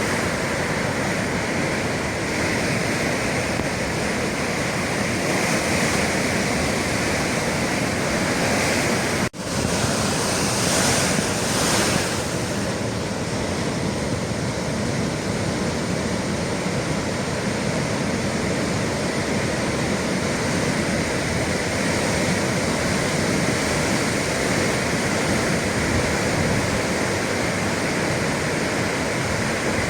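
Sea waves surging and breaking against the shore in a steady, loud wash, with wind on the microphone. The sound cuts out for a split second about nine seconds in.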